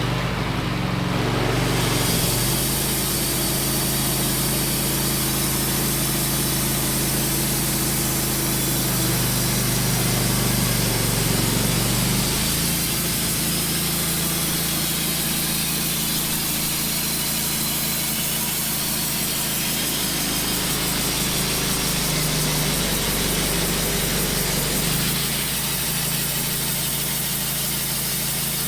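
WoodMizer LT15 portable band sawmill running, its band blade sawing steadily through a hard maple log over the steady drone of the mill's engine. The cutting hiss comes in about two seconds in and holds.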